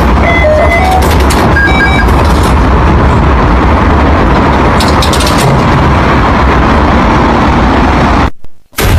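Loud, steady rumble and hiss of metro station ambience, with a few short electronic beeps in the first couple of seconds.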